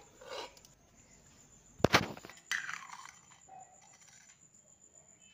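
Steel ladle clanking sharply against a steel serving bowl about two seconds in, followed by a softer clatter as the curry is ladled out.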